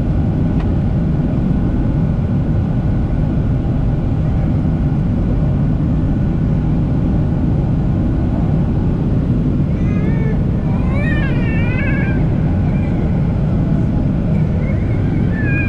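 Steady cabin noise inside a Boeing 737-700 on descent, from its CFM56-7B engines and the air rushing past the fuselage. About ten seconds in, a high wavering cry rises and falls for a couple of seconds, and another begins near the end.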